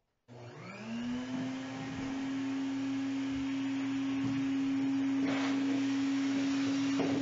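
Shop vacuum switched on, its motor spinning up to a steady hum and whine within about a second, then running steadily as the hose sucks debris off the hull bottom, with brief louder rushes of noise about five and seven seconds in.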